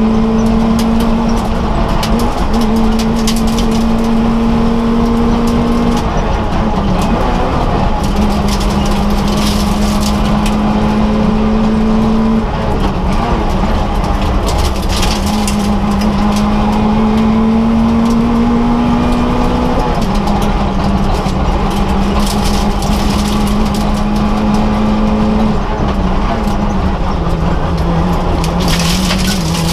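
Citroën AX rally car's engine heard from inside the cabin, driven hard on a special stage. The engine note is held high and fairly steady, and drops briefly at each gear change every several seconds, over constant road and tyre noise.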